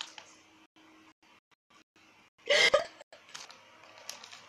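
A woman's short burst of laughter a little past halfway through; the rest is quiet.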